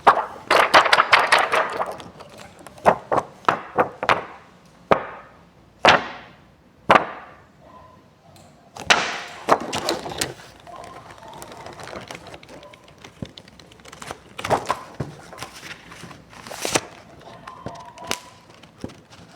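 Close-up handling noise: a string of taps, knocks and short rustles as a book and its loose plastic sheet are moved about, busiest in the first couple of seconds.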